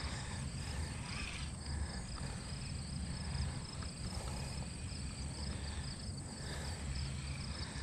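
Insects chirping in a steady, rapidly pulsing high trill over a low background rumble.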